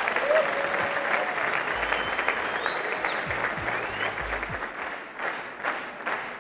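Audience applauding, a dense patter of clapping, with faint music underneath.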